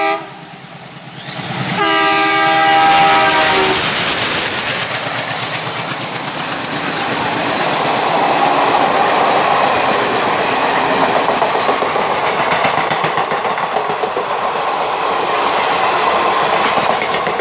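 WDM-3A diesel locomotive's horn: the tail of one blast right at the start, then a second blast of about two seconds, sounding several notes at once, about two seconds in. An express passenger train then runs past at about 90 km/h, with the steady rush and rapid clatter of coach wheels over the rail joints.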